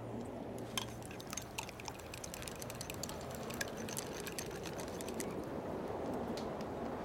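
A steady low hiss dotted with many small, irregular crackles and clicks.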